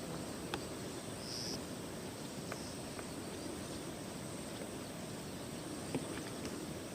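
Forest ambience: a steady low rushing noise under a continuous high insect whine, with a short chirp about a second and a half in and a few faint ticks.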